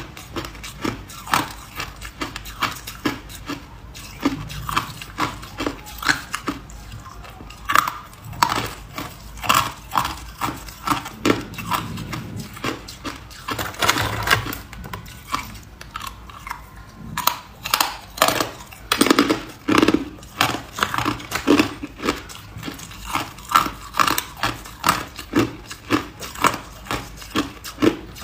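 Hard white ice cubes being bitten and chewed close to the microphone: a steady run of sharp, crisp crunches, about two a second.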